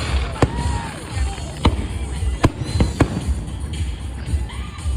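Fireworks going off: a run of about five sharp bangs over a steady low rumble, with short tones that rise and fall between them.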